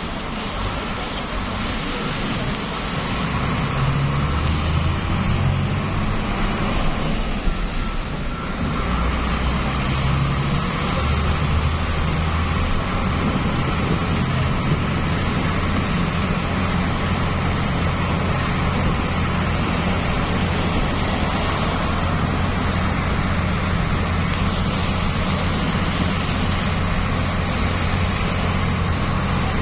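Highway traffic noise: a steady rush of tyres on the road with a low engine drone underneath, getting a little louder about four seconds in and then holding steady.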